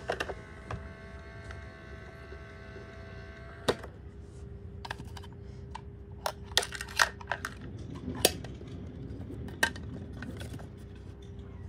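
Light plastic clicks and knocks from toy garbage bins and a toy garbage truck's lift arms being handled, coming in scattered taps with a cluster in the second half. Under them runs a steady humming tone that carries overtones for the first few seconds.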